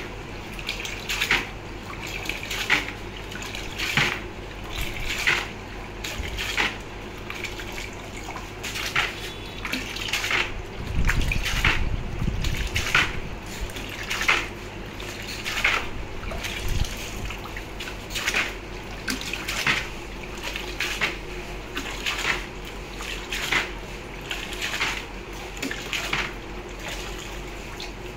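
Silver items hanging on a wire hook dunked again and again into buckets of soapy rinse water after plating, giving a rhythmic splash and slosh about every second and a quarter.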